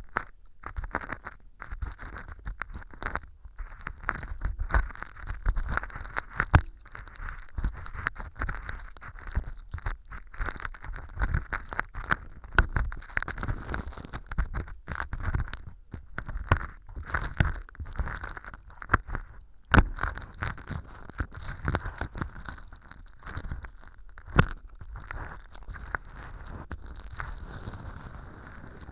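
Close-miked ear pick scraping and picking fake earwax out of a clear plastic model ear canal: a steady run of small scrapes with many sharp crackles and ticks as the styrofoam-powder and sawdust wax breaks loose.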